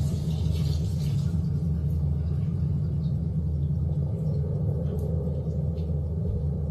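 A steady low rumbling drone, with a few faint clicks over it.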